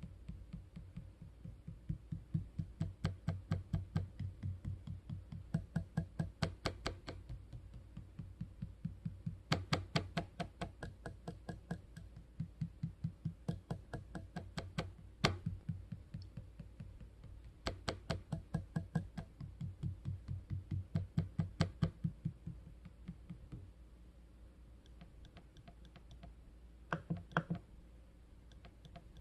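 Acer Aspire 5 laptop touchpad rattling with a hollow clatter as it is tapped repeatedly in quick runs of several knocks a second, with short pauses between runs. The touchpad sits loose in the plastic chassis.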